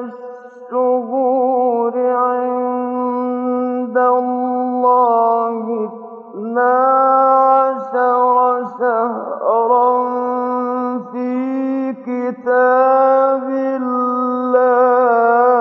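A man reciting the Quran in the slow, melodic mujawwad style, with long held notes carrying wavering, ornamented turns. The phrases are broken every second or two by short pauses for breath.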